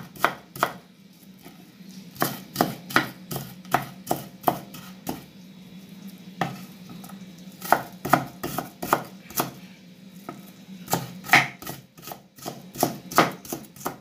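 Large kitchen knife chopping a white onion on a wooden cutting board: sharp knocks of the blade hitting the board in quick runs of strokes, broken by short pauses as the onion is gathered and turned.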